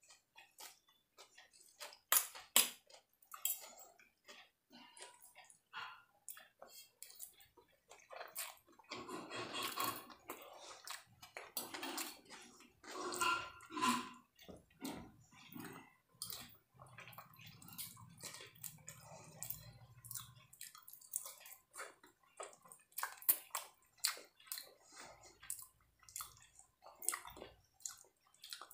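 A person eating fried rice and chilli chicken by hand: many short wet chewing smacks and mouth clicks, with fingers squishing food against a steel plate.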